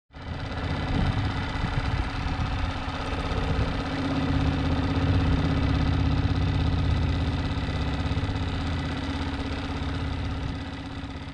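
An engine running steadily at an even speed, starting abruptly and fading out near the end.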